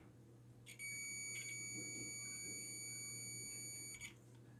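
Digital multimeter's continuity buzzer giving a steady high beep as its probes touch a zero-ohm resistor, starting about a second in and lasting about three seconds, with a brief break near one and a half seconds. The beep signals that the resistor conducts straight through with almost no resistance.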